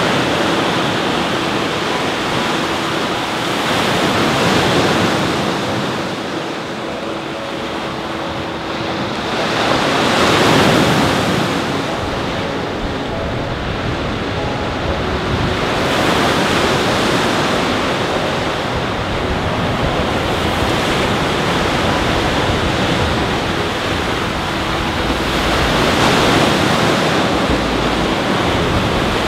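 Lake Michigan waves washing in over a rocky shoreline: a steady rush of surf that swells louder every several seconds as larger waves break.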